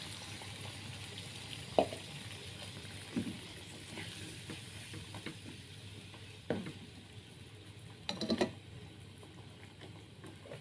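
Spice paste and beef trimmings sizzling in a pan with a splash of water, a spatula stirring through them and knocking against the pan several times.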